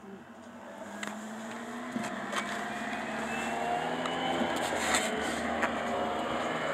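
A motor running, getting steadily louder and rising slightly in pitch over the first few seconds, with a few sharp clicks over it.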